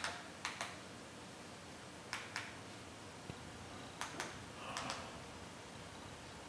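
Faint clicks of a handheld remote's buttons being pressed, in pairs about every two seconds, over quiet room tone, with a brief soft rustle about five seconds in.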